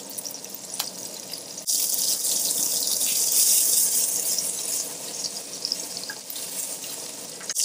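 Sliced shallots frying in hot oil in an enamelled cast-iron Dutch oven: a steady hissing sizzle. It jumps louder about a second and a half in and eases off again about six seconds in.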